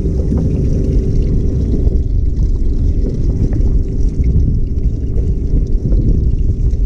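Wind buffeting the microphone on a small open boat: a steady low rumble, with a faint steady hum underneath for the first couple of seconds.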